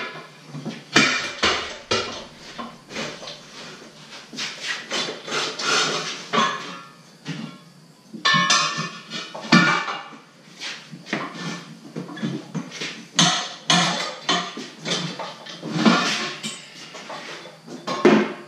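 Irregular metal clanks and knocks of tire tools striking and prying against a steel wheel rim during a manual tire change. There are many separate hits, some of them sharp and loud.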